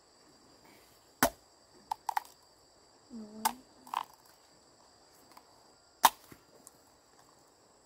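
Two loud, sharp knocks about five seconds apart, with a few lighter taps and clicks between them, over a faint steady high whine.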